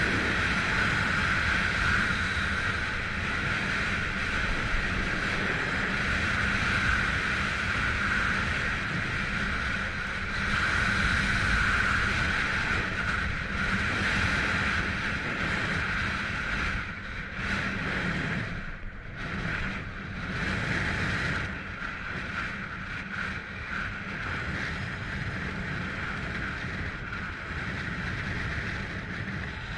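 Wind rushing and buffeting over the camera's microphone, with telemark skis hissing over groomed snow during a fast descent. The sound dips and breaks up for a few seconds a little past halfway.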